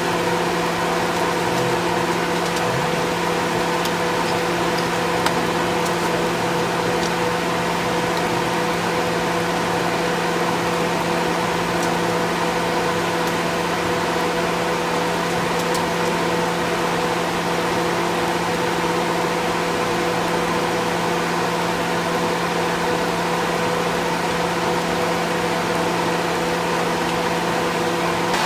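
Steady mechanical hum with an even rush of air from paint spray booth equipment running continuously.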